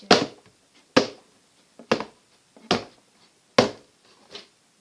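Five sharp knocks, about a second apart, each dying away quickly, like blows struck on something hard.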